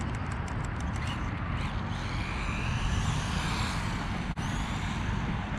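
Steady background noise with a faint electric motor whine from a small 1/18 RC truck, which rises and then falls between about two and four seconds in.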